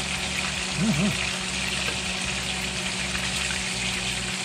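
Steady sizzle of chicken frying in hot oil. About a second in, a short hummed "mm-mm" of someone savouring food.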